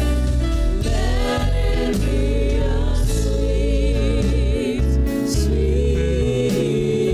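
Gospel worship music: voices singing with wavering held notes over keyboard and bass guitar.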